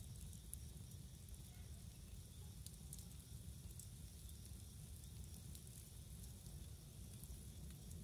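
Wood campfire burning faintly, with light crackling and scattered small pops over a low steady rumble.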